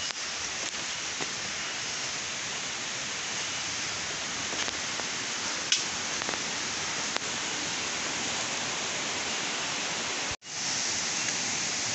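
Steady rain falling on the forest foliage: an even hiss, with a few light knocks and a brief cut-out near the end.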